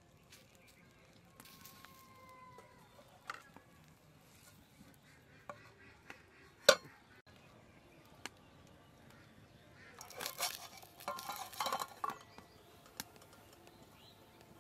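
Steel plate lid and iron tawa clanking: one sharp metal clank about halfway through as the lid is set down, then a short run of metal clattering near the end as it is handled and lifted off. Between these there is only a faint background.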